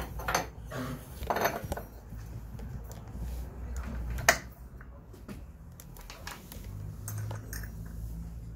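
Metal scooter drivetrain parts clinking and knocking as they are handled and fitted by hand: the CVT drive face and belt going back onto the transmission, with one sharp clank about four seconds in.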